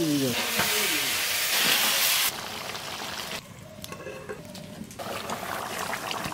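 Raw chicken pieces dropped into hot oil in a clay pot, sizzling loudly. The sizzle cuts off after about two seconds, and a softer hiss returns near the end.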